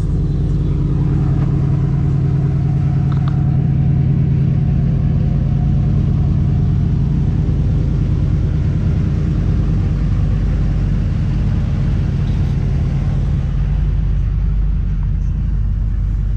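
Pontiac Firebird Trans Am engine running with a steady low drone that eases a little about seven seconds in.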